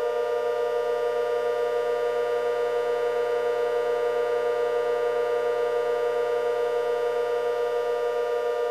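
Outdoor warning siren holding a steady chord of several tones, with a slight fast pulsing and no rise or fall in pitch.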